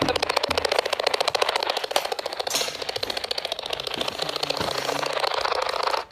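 Two-channel spirit box sweeping the AM/FM band: radio static chopped into a rapid, even pulsing, many pulses a second, which cuts off suddenly near the end.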